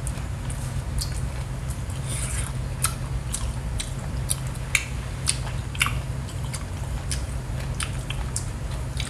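Close-miked chewing of seafood, with scattered wet mouth clicks and smacks, over a steady low hum.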